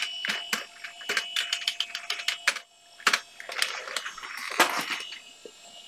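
Typing on a computer keyboard: a run of quick, irregular key clicks, a short pause about two and a half seconds in, then more clicks that thin out near the end.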